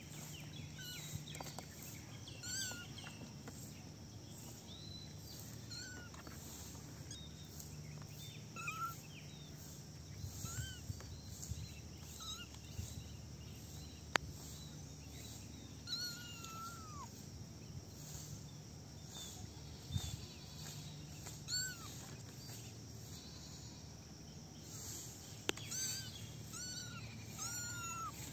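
Young kittens meowing: short, high, rising-and-falling mews every few seconds, coming closer together near the end, over a steady low background hum.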